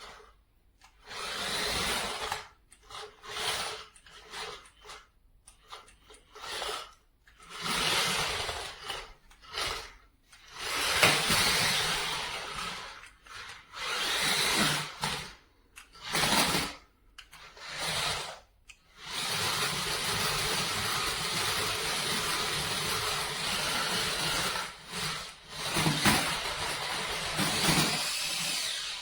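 Toy 4WD RC stunt car's small electric drive motors whirring in short stop-start bursts as it is driven, then running steadily for several seconds about two-thirds of the way through.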